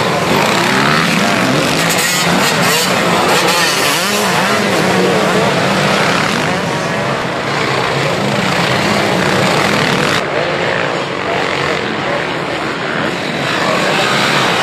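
Several motocross bikes racing through a dirt-track corner, their engines revving up and down and overlapping as one rider after another passes. Loud throughout.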